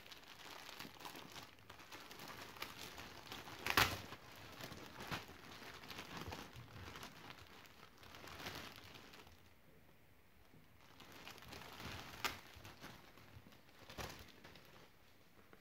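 Thin clear plastic polybag crinkling and rustling as it is pulled open and a shirt is slid out of it, with a few sharper crackles, the loudest about four seconds in.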